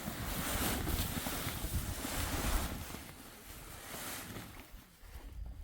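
Wind buffeting the microphone in gusts, a rumbling, rushing noise that swells and eases and drops away near the end.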